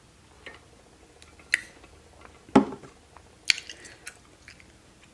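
Close-miked eating sounds: wet, squishy chewing with a few short sharp clicks, and one louder knock about two and a half seconds in.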